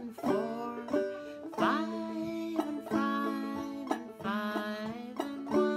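Banjo played clawhammer (frailing) style in Double D tuning, a steady run of picked and brushed notes as it plays through the tune's chord changes.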